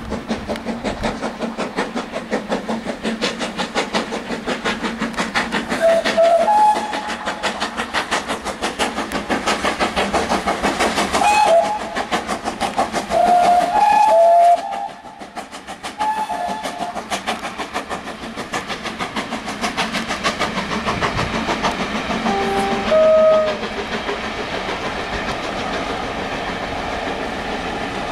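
Steam locomotive hauling a train of coaches past, with a rapid, even beat of exhaust or wheel rhythm throughout. Several short high tones stand out around 6 s, between 11 and 14 s, and again near 23 s.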